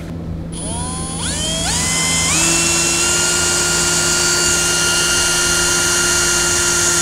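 Power drill boring a small hole in a car's kick panel: the motor whine climbs in pitch in steps as it spins up, holds steady, then winds down near the end.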